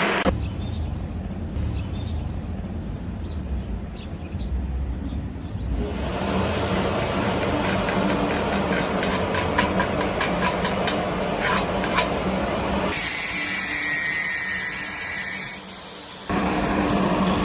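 Stick-welding arc sizzling and crackling, with a steady hum underneath; the sound changes abruptly several times.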